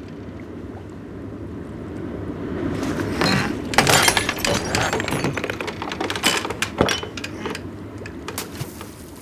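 A flurry of knocks, clatters and glassy clinks, thickest in the middle few seconds, over a steady low wash of sea and wind: gear and a bottle knocking about in a small wooden boat.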